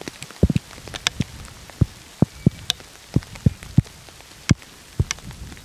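Scattered raindrops striking the camera and its microphone: a dozen or more sharp, irregularly spaced taps, several with a low thump.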